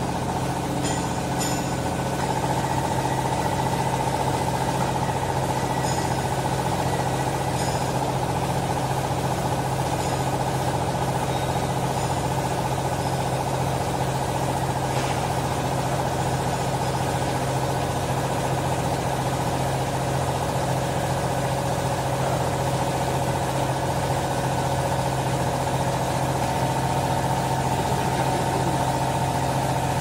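Vertical hydraulic clothes baler's power unit, an electric motor driving the hydraulic pump, running steadily with a low hum and a whine that grows stronger about two seconds in.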